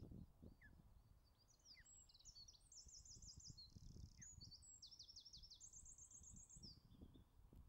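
A small songbird singing faintly: one long, varied song of high, rapid trills and downward-sliding notes lasting about five seconds, over a steady low rumble.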